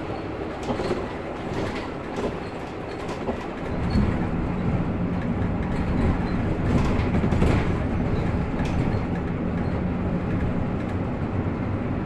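Mercedes-Benz Citaro K C2 city bus under way, heard from inside the cabin: engine and drivetrain running with road rumble. About four seconds in, the engine drone grows louder and stays steady as the bus pulls under load.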